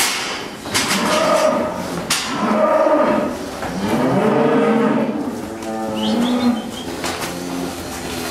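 Cattle mooing, several animals calling one after another with the calls overlapping, plus a few sharp knocks in the first two seconds.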